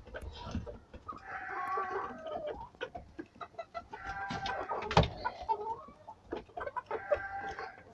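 Chickens clucking and calling in three bouts, mixed with small clicks and taps and one sharp knock about five seconds in.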